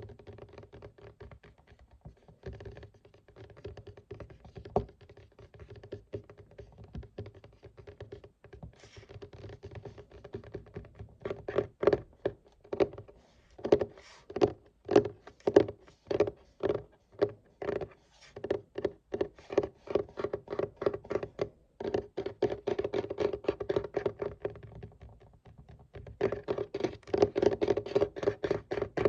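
Fingers tapping on a desk: scattered single taps at first, then quick runs of taps from about eleven seconds in. Near the end come denser stretches of rapid tapping and scratching on the desk surface.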